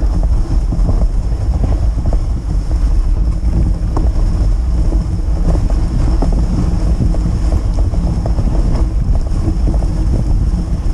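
Wind rumbling steadily on the microphone of a moving dog sled, with the runners scraping and hissing over packed snow and faint small crunches throughout.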